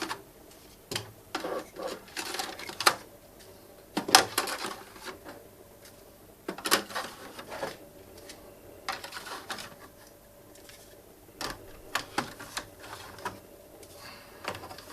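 Plastic hard-drive trays being slid one after another into the drive bays of a Synology DS1815+ NAS, each slide a short scraping rattle ending in clicks as the tray latches in place.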